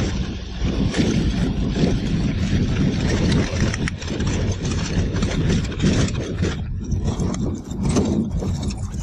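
Floatplane's piston engine running as the plane speeds across the lake on its floats, mixed with rushing wind and water spray from the floats.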